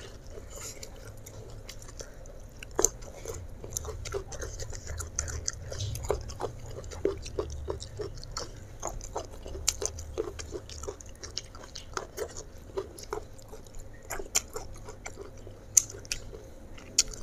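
Close-miked eating sounds: chewing fried mackerel and rice with sambal, eaten by hand, as a steady run of small wet clicks and smacks, several a second, with a few louder clicks. A low steady hum runs underneath.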